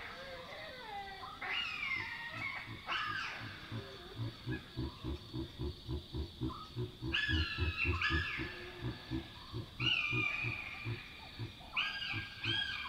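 Chacma baboons calling: a rapid series of low grunts, about three to four a second, with higher squealing calls over it.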